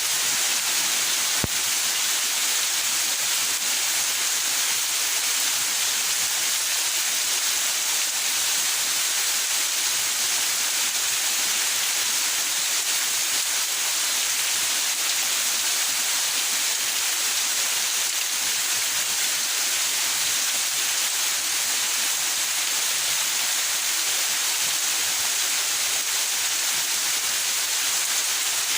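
Steady rain falling in a backyard, an even hiss with no let-up, and a single faint click about a second and a half in.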